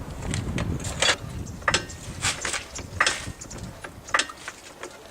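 A string of sharp clicks or knocks, about one every half second or so, with a low rumble under the first half. These are likely hand tools at work on a wheel rather than the impact wrench, which is not running.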